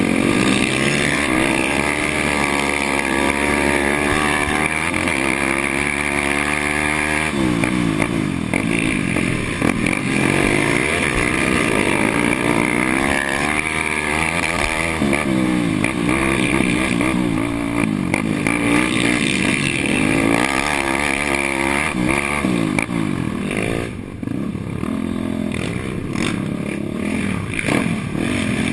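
Suzuki LT-R450 quad's single-cylinder four-stroke engine running hard under race riding, its pitch repeatedly climbing and falling as it is revved, shifted and backed off. It eases off briefly about three quarters of the way through.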